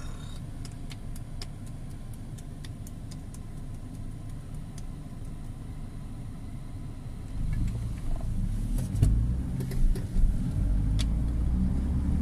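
Low, steady rumble of a car on the road, with faint scattered clicks, growing louder about seven seconds in.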